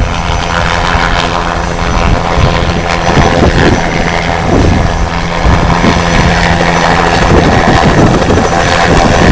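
Bell 206B JetRanger III helicopter hovering low, its turboshaft engine and two-blade main rotor running loud and steady, growing a little louder towards the end.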